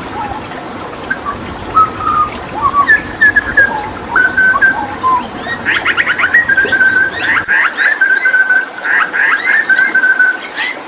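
Hooded butcherbird singing: a string of short clear whistled notes, then from about halfway a faster run of quick sweeping notes over a held whistle.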